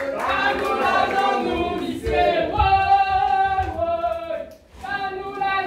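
A group of voices singing together in long held notes, with a brief break about four and a half seconds in.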